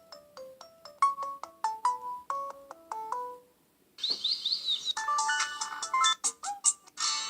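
Samsung Galaxy S3 ringtones previewed one after another. First comes a melody of short, decaying notes. It stops after about three seconds, and after a brief pause a different ringtone starts with quick high chirps, then a busier melody.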